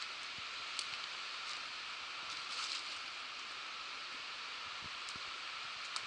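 Steady rushing of a mountain river below a forest trail, with a few faint crunching footsteps on leaf litter and stones about a second in and again near the middle.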